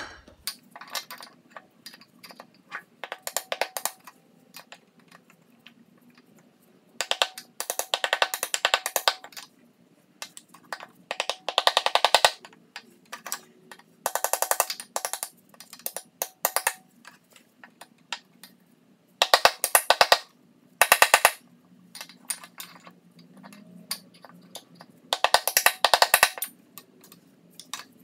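Hammer tapping on an improvised metal driver held over the crankshaft, seating a new upper crankshaft oil seal into a Briggs & Stratton lawn mower engine's crankcase. The blows come in bursts of rapid taps with short pauses between them.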